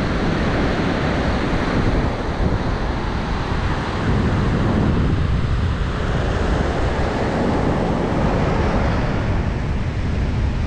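Arabian Sea surf washing onto the beach in a continuous, gently swelling roar, with wind buffeting the microphone.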